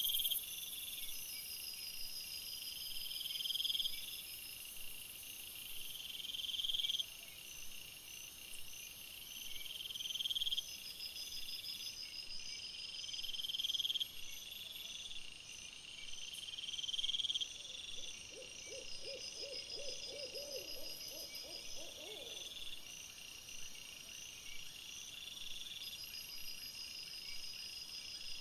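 Night insects chirping in a steady, repeating chorus, each high chirp swelling in level about every three and a half seconds over a faster pulsing trill. About eighteen seconds in, an animal gives a quick run of a dozen or so low, pitched calls lasting about four seconds.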